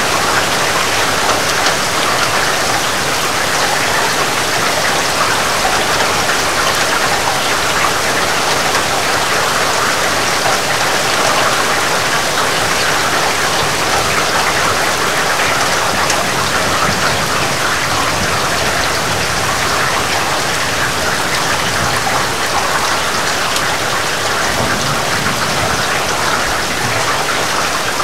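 Heavy rain falling steadily, a dense even hiss of drops.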